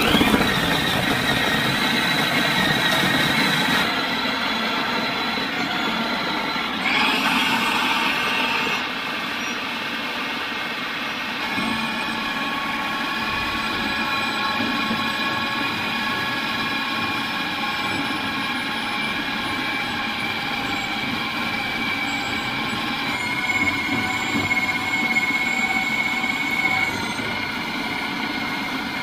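Electric food processor switched on and running steadily, its motor whine over the blade churning raw chicken and carrot into a paste for chicken nuggets.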